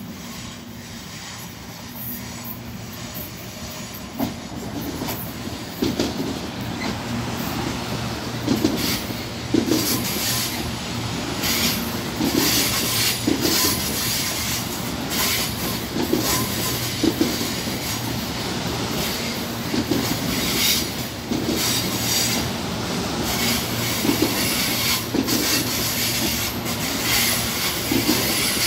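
CPTM Série 7000 electric multiple unit running into a station platform, growing louder from about four seconds in. Its wheels clack over the rail joints in a repeating rhythm and squeal as the cars roll past.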